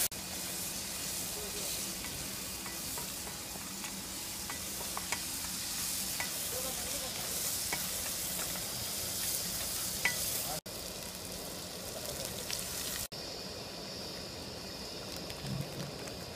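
Chopped tomatoes frying and sizzling in a pan on a small gas stove, with a wooden spoon scraping and tapping as the mixture is stirred. The sound drops out for an instant twice in the latter half.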